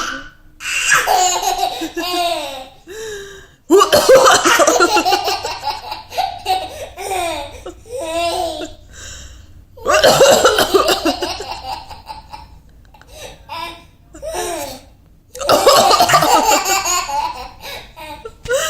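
Baby belly-laughing in repeated bouts with short breaks between them, the loudest bouts setting off about 4, 10 and 15 seconds in.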